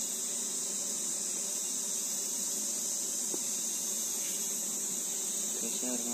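Steady, high-pitched shrill of insects, a cricket or cicada chorus, with a faint buzz of stingless bees around the open hive. A short pitched hum comes near the end.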